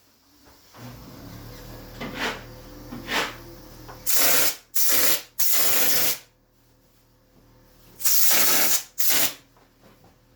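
Ceiling texture being sprayed on: short bursts of hissing spray, two soft ones and then five loud ones in two groups, over a faint steady low hum.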